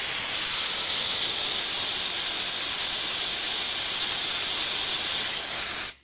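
Compressed air hissing out of the open drain cock on a Clarke industrial compressor's air tank as the tank is drained of water. The loud, steady hiss cuts off suddenly near the end.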